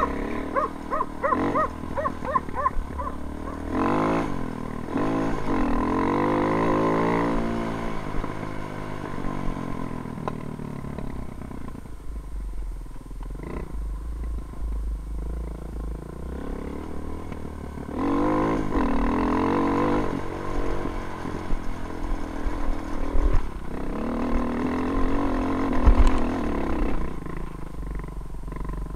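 KTM motorcycle engine revving: a few quick throttle blips at the start, then several long pulls that rise in pitch as it accelerates and fall away as it eases off, under a low wind rumble on the microphone.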